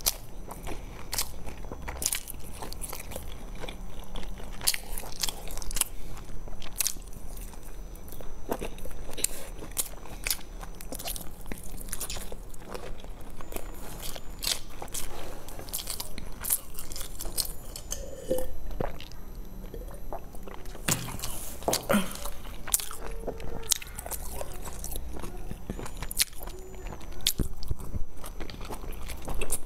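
Close-miked chewing and biting of large pan-fried dumplings, with frequent sharp mouth clicks and smacks throughout.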